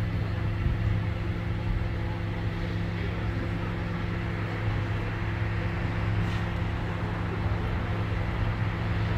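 A motor vehicle's engine running steadily: a continuous low hum with a few faint steady tones above it.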